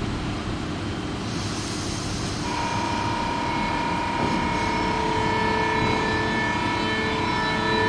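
SBB Re 460 electric locomotive starting to pull away. A brief hiss of air comes about one and a half seconds in, then a steady high whine from its traction equipment sets in over a low rumble and grows slowly louder.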